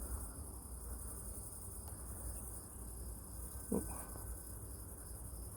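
Crickets chirping in a steady, continuous high trill, over a low rumble, with one brief short sound a little past the middle.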